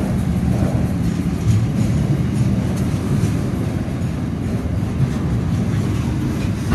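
Freight train departing, its steel-carrying wagons rolling past close by: a steady low rumble of wheels on rail with faint ticks and clicks.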